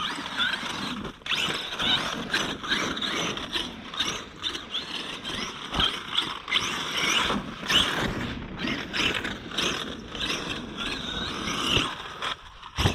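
Arrma Outkast 8S RC truck's brushless motor whining up and down in pitch in repeated throttle bursts, with drivetrain gear noise and the tyres scrabbling through soft dirt.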